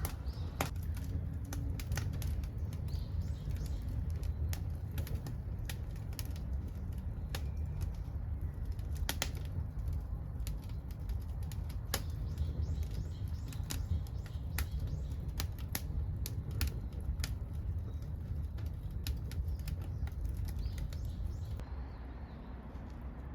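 Wood fire crackling with irregular sharp pops in a secondary-combustion wood gas stove burning pieces of an old wooden futon chest, over a steady low rumble of the burning fire.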